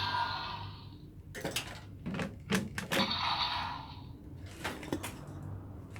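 Electronic sound effect from a DX ZAIA Slashriser toy fading out, followed by a series of sharp plastic clicks and clacks as its parts are worked by hand, with a short electronic hiss in the middle.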